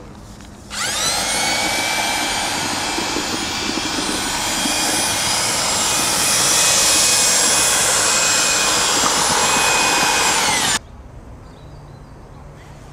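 A high-speed electric power tool motor spins up with a rising whine, runs steadily and loudly for about ten seconds, then cuts off abruptly.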